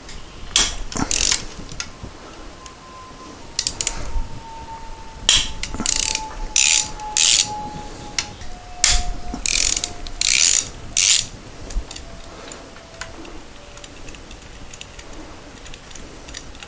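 Hand ratchet on a long extension clicking in about a dozen short bursts as the 13 mm bolts holding the oil filter housing are backed out.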